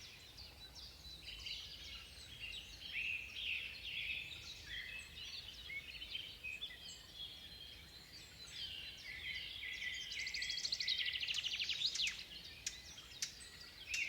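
Several songbirds singing in a forest, short chirps and whistles overlapping, with a fast trill about ten seconds in.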